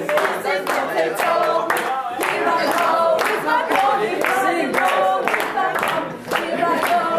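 A group of students singing together in chorus, with scattered hand claps.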